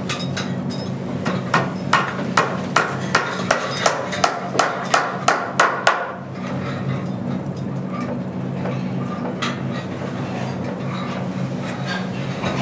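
Hammer blows, about a dozen evenly spaced at two or three a second, stopping about six seconds in. A steady low hum runs underneath, with a few lighter knocks near the end.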